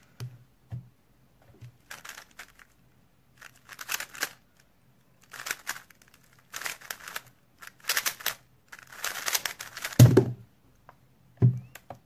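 Plastic 3x3 speed cube being turned at high speed: runs of rapid clicking and clacking as the layers snap round, broken by short pauses. Near the end come two dull thumps as the cube and hands come down on the mat and timer.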